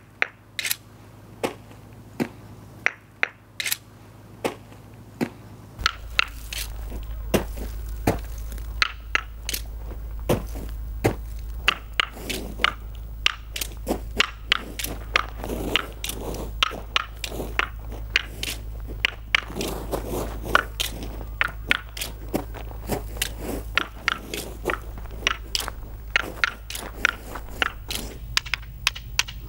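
Irregular sharp crackles and clicks, about one a second at first and then denser, two or three a second, from about six seconds in, over a low steady hum that comes up at the same point.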